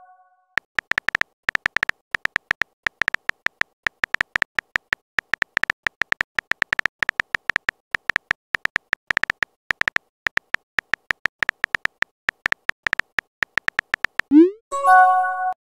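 Rapid, irregular clicks of a phone-keyboard typing sound effect, each a short high tick. About fourteen seconds in comes a short chime, a quick upward glide into a few bright steady tones, like a chat message alert.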